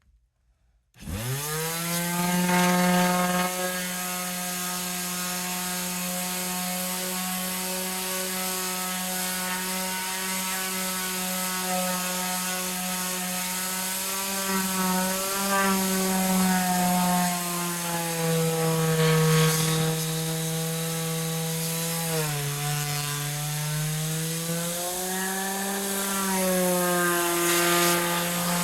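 Electric power sander switched on about a second in, its motor spinning up fast to a steady hum with a rushing hiss as it sands. The pitch sags briefly several times, as the motor is pressed harder into the work.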